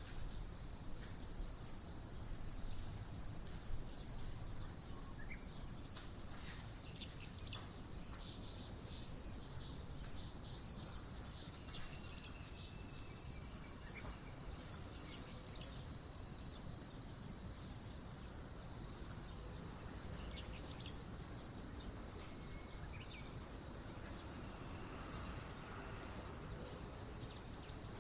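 Insect chorus: a steady, unbroken high-pitched trilling that holds at the same level throughout.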